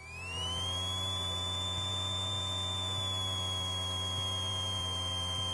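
Electrical whine on a Cessna's headset intercom audio: a high tone that rises over the first half second and then holds steady, over a low hum.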